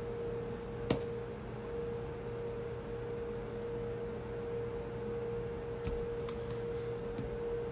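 A steady, even tone over a low hum, with one sharp click about a second in and two faint clicks later on.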